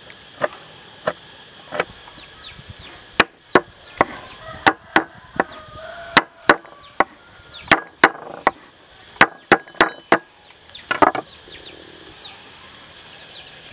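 Heavy cleaver chopping red chilies on a wooden cutting board: a run of sharp, irregular knocks of the blade on the wood, coming faster in the middle and ending with a quick cluster about eleven seconds in. Chickens cluck in the background.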